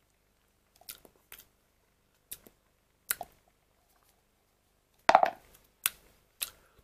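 An empty plastic pudding cup being handled and set down: scattered light clicks and taps of plastic, with a sharper cluster of knocks about five seconds in and two more shortly after.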